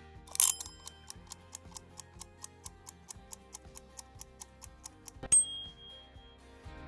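Stopwatch timer sound effect: a short swoosh, then steady clock ticking at about five ticks a second, ending in a bright ding that rings on for about a second.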